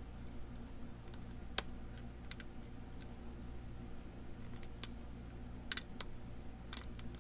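Scattered small metallic clicks and ticks of lock picking tools working the pins inside a challenge lock. The sharpest clicks come about a second and a half in and in a cluster near the end.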